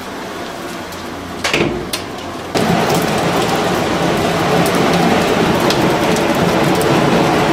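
Wood fire of split logs crackling under spit-roasting chickens, with a couple of sharp cracks about a second and a half in. About two and a half seconds in the crackle turns suddenly much louder and denser.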